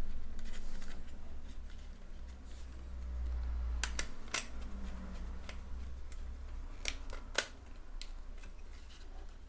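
Small screwdriver tightening the wire terminal screws of a plastic power strip: a few sharp clicks and light scrapes of the blade in the screw heads and of the plastic housing being handled, the loudest about four seconds in and near seven seconds in, over a low steady hum.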